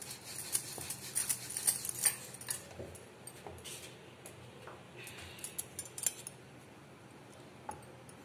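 Wooden rolling pin tapping and knocking on a wooden rolling board while roti dough is rolled out: a run of light clicks and taps, then quieter, with a few scattered clicks.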